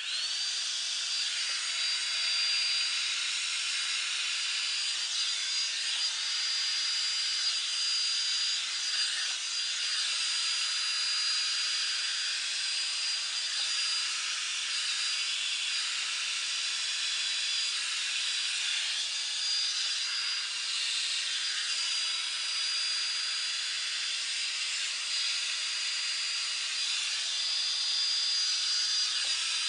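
Revlon One Step Volumizer hot-air brush dryer switched on, its motor whining up to speed, then running steadily with a hiss of blowing air and a high motor whine.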